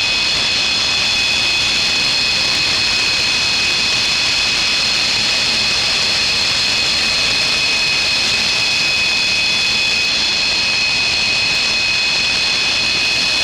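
Dassault Mirage 2000's single SNECMA M53 turbofan running steadily: a loud, even hiss with a high whine of several steady tones on top, holding the same pitch and level throughout.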